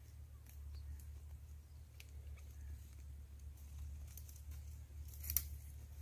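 Dry twigs and brush crackling with small scattered snaps, and one sharper snap about five seconds in, over a steady low rumble.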